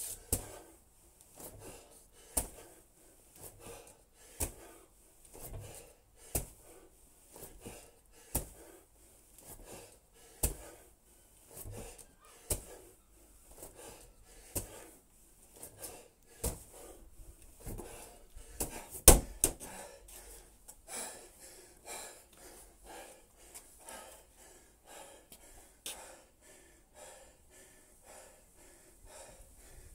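Wall-ball set: a medicine ball thudding against a wall about every two seconds, the loudest thud about nineteen seconds in, with heavy panting between throws. The thuds stop after about twenty seconds and hard breathing goes on.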